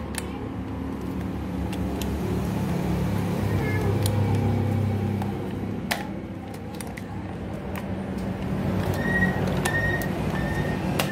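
A 6603-model cordless drill being test-run: its motor hums in uneven spells, the speed rising and falling with the trigger, with a few sharp clicks.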